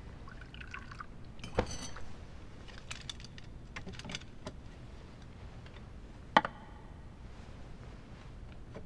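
Scattered light clinks and knocks of tableware, such as a soup bowl and utensils being handled and set down. The sharpest clinks come about one and a half seconds in and about six and a half seconds in.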